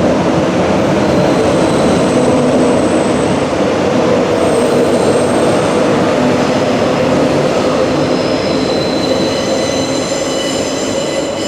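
Queensland Rail EMU electric train running with a steady loud rumble; from about four seconds in, several thin high-pitched squealing tones come in and grow more numerous toward the end.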